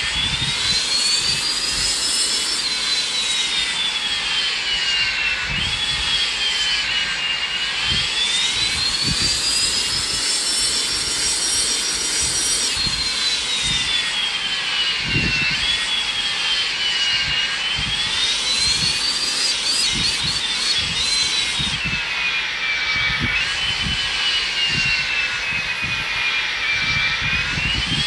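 Boeing 757 jet engines running over a steady rush of airflow. The engine whine keeps gliding up and down in pitch every few seconds as thrust is adjusted on the landing approach, with scattered low bumps underneath.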